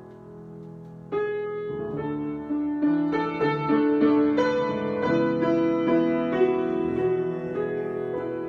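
Solo piano improvisation: a soft held chord fades, fresh chords are struck about a second in, and the playing grows fuller and louder over the next few seconds.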